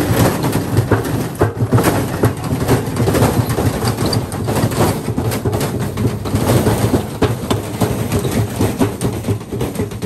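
Beko front-loading washing machine spinning violently out of balance with heavy bricks in its drum: a loud, continuous rumbling with rapid banging as the load pounds the drum and the machine shakes and walks across the concrete.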